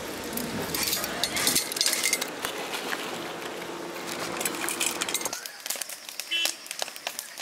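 Steel plates and utensils clinking and clattering, many quick metallic clicks. About two-thirds of the way in it drops to a much quieter stretch with only scattered clicks.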